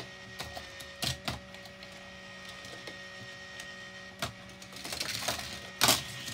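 Small battery-powered toy motor of a Hot Wheels Volcano Escape playset whirring steadily as it drives the car lifters, with a few sharp clicks and clacks of die-cast cars and plastic track parts, the loudest near the end.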